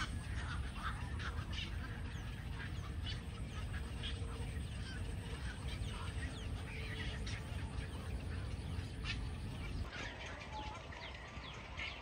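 A nesting colony of cormorants and other waterbirds calling: many short overlapping calls, with a low steady rumble underneath.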